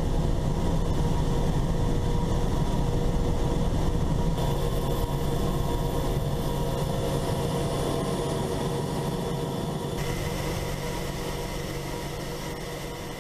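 Boeing AH-64 Apache's twin turboshaft engines and rotor heard from inside the cockpit: a steady drone with a steady whine over it, gradually getting quieter toward the end.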